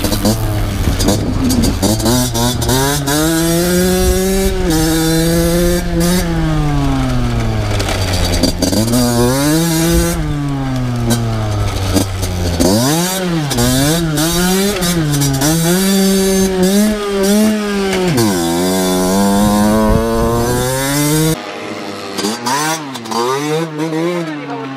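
Two-stroke motocross bike being ridden hard, its engine revving up and falling back again and again as the rider works the throttle and gears. Near the end the engine sound turns quieter and thinner.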